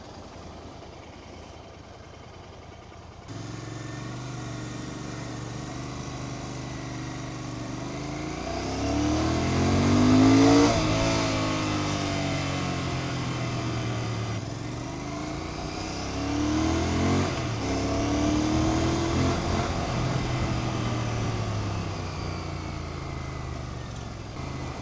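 Royal Enfield Continental GT650's 648 cc parallel-twin engine through its stock exhaust, heard while riding. After a quieter first few seconds it comes up suddenly, then twice the pitch climbs under acceleration and drops away.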